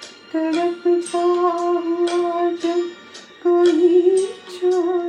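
Closing music of a Hindi film song: a melody of long held notes with short breaks between them, over plucked-string strokes.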